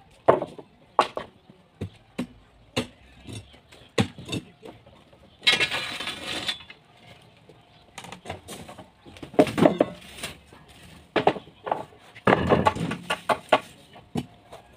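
Wooden formwork boards being knocked and pried off a concrete foundation plinth with a metal bar: irregular sharp knocks of metal on wood and concrete. A harsher noise lasting about a second comes about five and a half seconds in.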